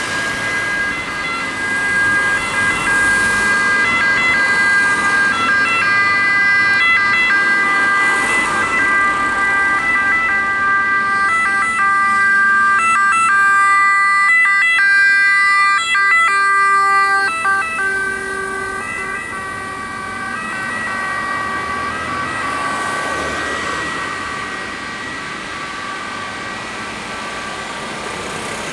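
Renault Master ambulance's siren sounding in steady alternating two-tone steps as it passes. It is loudest around the middle, then weaker as the vehicle drives away.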